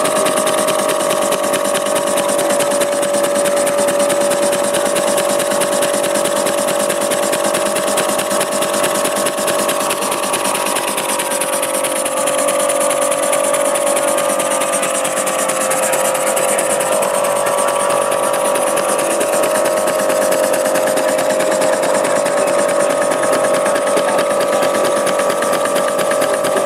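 Small working model engines running on a display table: a fast, even mechanical clatter of cranks and valve gear over a steady hum, continuous throughout.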